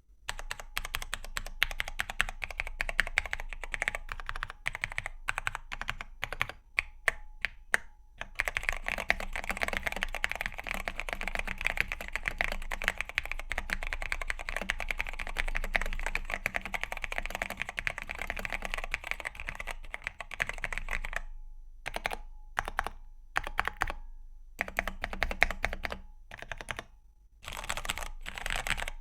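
Typing on a mechanical keyboard with Cherry MX Black Hyperglide linear switches and PBT keycaps: separate key presses for the first several seconds, then fast continuous typing, then scattered presses with short pauses near the end. The untuned switches ping loudly, a spring ping that calls for lube, films and new springs.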